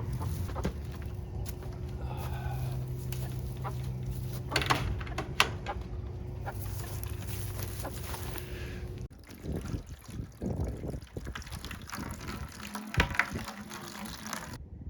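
Black Australorp hens clucking while water runs into a bucket waterer, filling it and its automatic drinking cups. The running water stops abruptly about nine seconds in.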